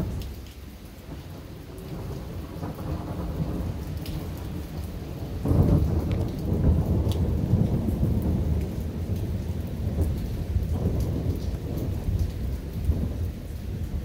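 Thunder rumbling long and low after a lightning flash, swelling again about five and a half seconds in, with steady rain falling and dripping.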